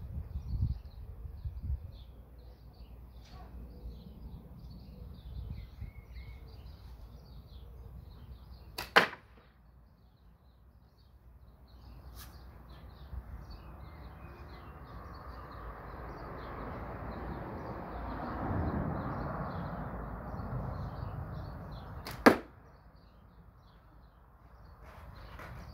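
Two Milbro catapult shots, each a single sharp crack, about 13 seconds apart. Between them a rushing noise swells and fades.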